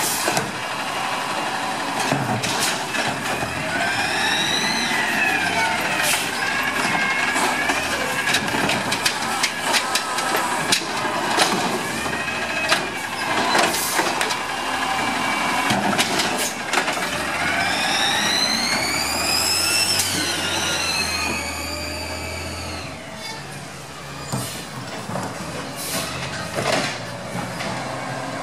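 Amrep automated side-loader garbage truck on an LNG Peterbilt 320 chassis at work. Twice the engine and hydraulics whine up and back down as the lift arm cycles, with clanks and knocks from the cart and the load, and air-brake hiss.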